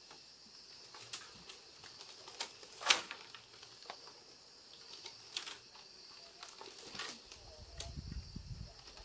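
A large woven bamboo mat panel being handled against a bamboo house wall: scattered dry clicks and knocks of bamboo, the loudest about three seconds in, with a low rustling rumble starting past the halfway point.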